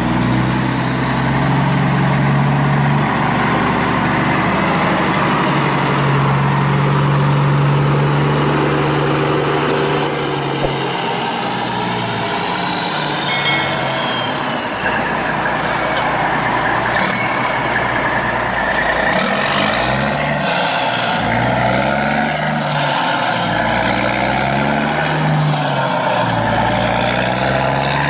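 Heavy truck engine sound effect: the engine runs steadily, then from about two-thirds of the way in it revs up and down in repeated swells.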